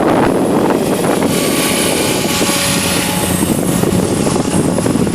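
ALZRC Devil 505 electric RC helicopter flying, its brushless motor and rotor running with a faint steady whine, under heavy wind rumble on the microphone from strong gusts.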